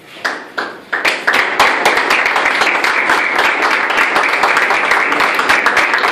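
A small group of people applauding: a few single claps, then steady clapping from about a second in.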